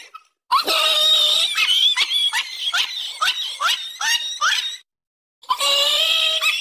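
Loud, high-pitched squealing cries repeated in quick succession, many sweeping upward in pitch; they break off for about half a second some five seconds in, then start again.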